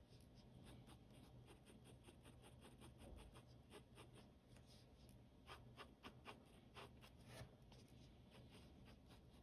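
Faint scratching of a ballpoint pen on sketchbook paper: a steady run of quick, short shading strokes, a few each second, coming thicker past the middle.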